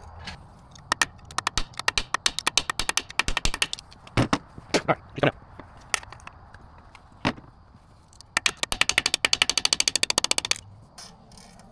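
Ratchet wrench clicking in several quick runs while working a part loose on an outboard lower unit, the longest run near the end at about ten clicks a second.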